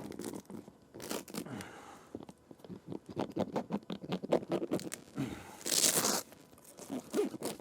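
A Jeep soft top being handled and pulled loose: crackling and rustling of stiff, old top fabric, with runs of small clicks and scrapes and two short rustles, about a second in and near the end.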